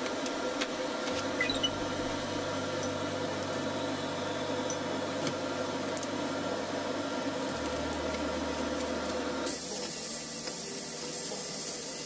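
Soft background music, then about nine and a half seconds in a cordless DeWalt brushless angle grinder fitted with a diamond core bit starts up with a steady hiss and thin high whine as the bit is set against a tile to bore a hole.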